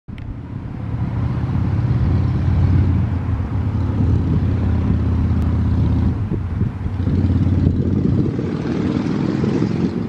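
Wind buffeting the microphone: a loud, unsteady low rumble.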